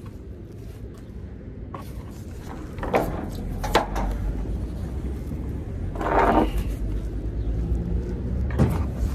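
Metal clacks and a rattle from the lever latches and aluminium side boards of a lorry trailer being handled: two sharp clicks about three and four seconds in, a longer rattling clatter a little after six seconds and another knock near the end, over a steady low rumble.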